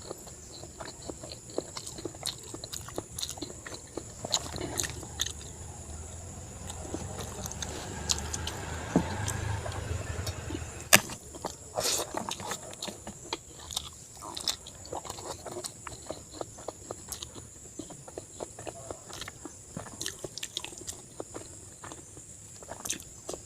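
Close-miked chewing and eating sounds of someone eating pork curry with rice: irregular wet mouth clicks and smacks, with a louder stretch of chewing about eight to eleven seconds in and a sharp click around eleven seconds.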